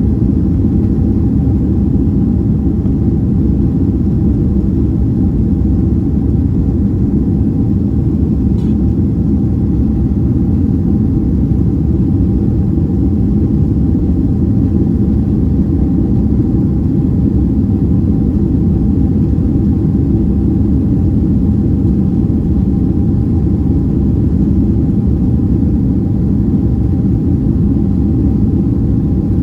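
Steady low rumble of engines and airflow heard inside the cabin of a Boeing 767-300ER, with a faint steady hum above it.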